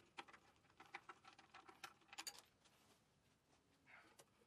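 Faint small clicks and taps, about a dozen in the first two and a half seconds, of hands handling the breakerless ignition coil against a Kohler K-Series engine's sheet-metal flywheel housing; the rest is near silence.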